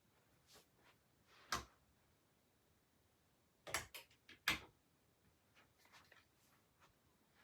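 A few sharp clicks and knocks against a quiet room: one about a second and a half in, then a quick cluster of them near the middle.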